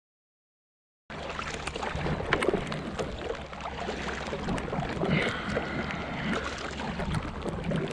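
Silent for about the first second, then a kayak paddle dipping and pulling through the water in repeated strokes, with rain falling on the river surface around the kayak.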